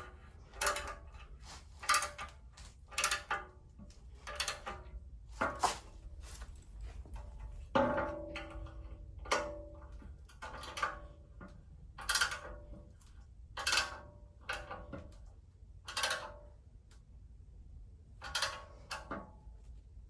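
Hand tools working on metal bolts: a string of short metallic clicks and clinks, roughly one a second, a few ringing briefly, as the radiator's mounting bolts are tightened down.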